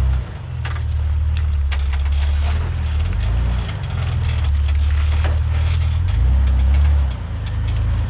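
Jeep Wrangler TJ's engine running at low revs as it crawls over rocks, the throttle swelling and easing several times, with scattered sharp clicks and knocks from the tyres and chassis working over the stones.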